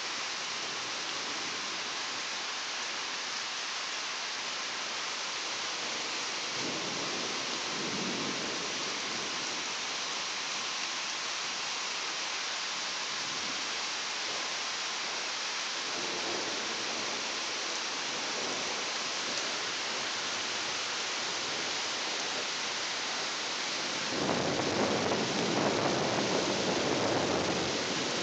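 Steady rain hissing through a thunderstorm, with rolling thunder: a low rumble about seven seconds in, another around sixteen seconds, and the loudest roll of thunder over the last few seconds.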